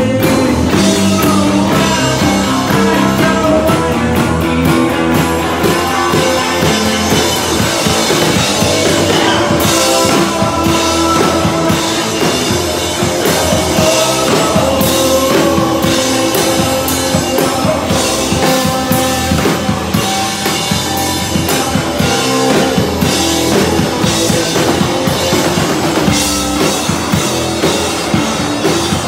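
A rock band playing live and loud: guitar, drum kit and a sung lead vocal.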